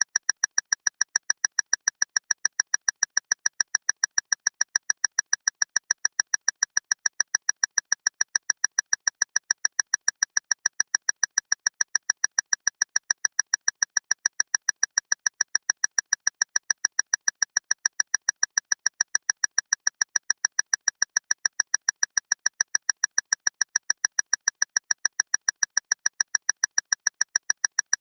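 Clock ticking loudly and evenly, about four sharp ticks a second, with no change in pace.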